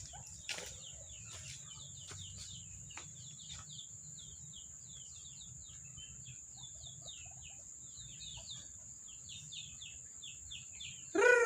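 Bird calls: a steady run of faint, high chirps, each sliding downward, about two to three a second, over a steady high-pitched whine. Near the end a single loud call that falls in pitch.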